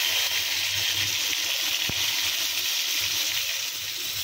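Whole climbing perch (koi) sizzling as they fry in hot oil in a pan: a steady hiss, with a single sharp tick about two seconds in.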